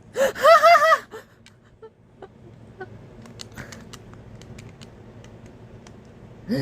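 A short wavering vocal groan about a second long, then light, scattered clicks and taps of plastic Lego pieces as the Lego butterfly knife is handled.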